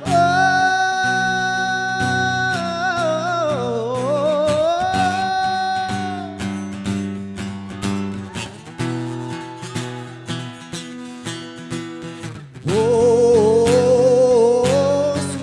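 Live R&B song: a singer holds long wordless notes with vibrato and sings bending runs over guitar accompaniment. The voice drops out for several seconds in the middle and returns loudly about two-thirds of the way in.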